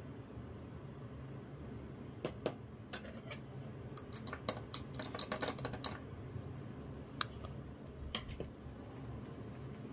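A run of light, sharp clicks and clatter from things being handled at a table, bunched a couple of seconds in and ending with two single clicks near the end, over a steady low hum.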